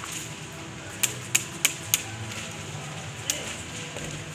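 Airsoft gun firing: four sharp snapping shots about a third of a second apart, then a single shot over a second later.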